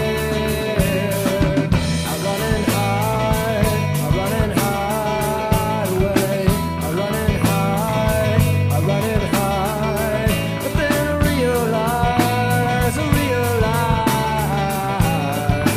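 Rock song played by a full band: drums keeping a fast, even cymbal beat over a pulsing bass and electric guitar, with a melodic lead line sliding between notes.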